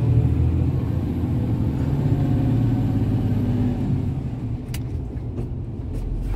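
MAN truck's diesel engine pulling uphill, heard from inside the cab. The engine note climbs a little, then eases off about four seconds in.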